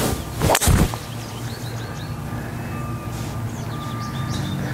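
Driver striking a golf ball off the tee: one sharp, loud crack about half a second in, followed by a steady engine hum.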